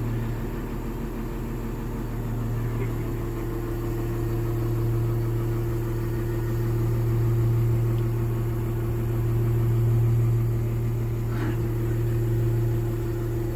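Excavator's diesel engine idling, a steady low hum with a constant higher tone above it.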